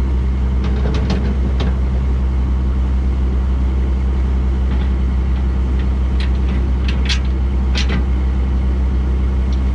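Fishing boat's engine running steadily underway, a constant low drone. A handful of short, sharp clinks and knocks from gear being handled on the metal deck, several near the start and a cluster about two-thirds of the way in.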